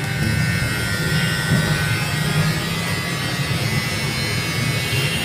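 Electric hair clippers running with a steady buzz while trimming a man's hair at the side of his head.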